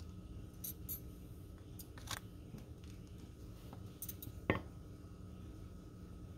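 Faint clicks and taps of spoons being lifted out of a glass beaker with an oven mitt, the sharpest click about four and a half seconds in.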